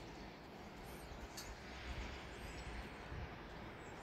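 Quiet outdoor ambience: a steady hiss with a low rumble underneath, and a few faint, high bird chirps about one to two and a half seconds in.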